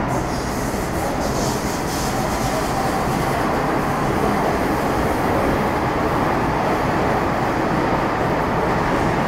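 Steady interior running noise of an MTR Metro Cammell M-Train (GEC GTO chopper EMU) between stations: an even rumble of the wheels on the rails.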